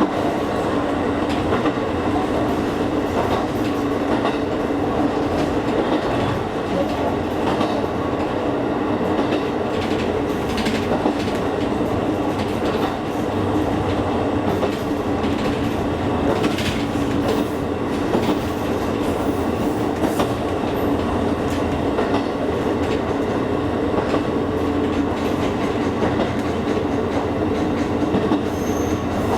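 Electric train on the Kakogawa Line running steadily along the track: a continuous rumble of wheels on rail with a steady low hum, and a few sharp clicks of wheels over rail joints.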